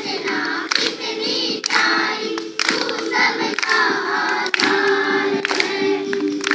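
A group of schoolchildren singing together in unison, with a sharp beat about once a second.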